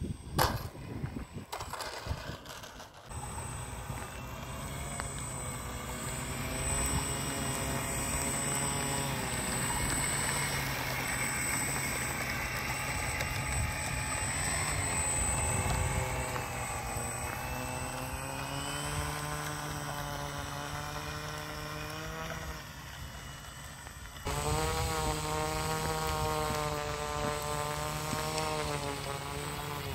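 Radio-controlled model airplane motor and propeller whine, several pitched tones drifting slowly up and down. A few sharp knocks come in the first seconds, and the whine changes abruptly about three-quarters of the way through.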